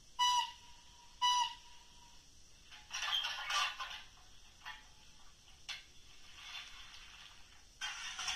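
Sound decoder of a model FS Gr.685 steam locomotive giving two short whistle toots about a second apart, followed by several bursts of hiss and a few sharp clicks.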